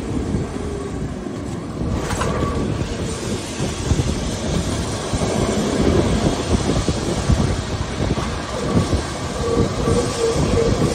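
Lisbon 28E tram running along its rails, heard from on board: a steady rumble with constant rattling and clattering of the wheels and car body, and a short wheel squeal near the end.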